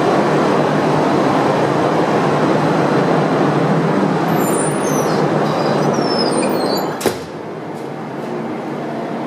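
Steady din of a ship's engine-room machinery. A door gives a few high squeaks as it is opened, then shuts with a single sharp bang about seven seconds in. After that the machinery noise is quieter and muffled, heard from inside the engine control room.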